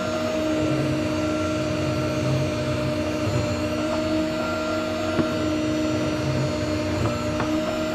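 Electric meat slicer's motor running with a steady hum while its circular blade shaves thin slices off partly frozen ribeye end cuts, the meat pushed back and forth against the blade by hand.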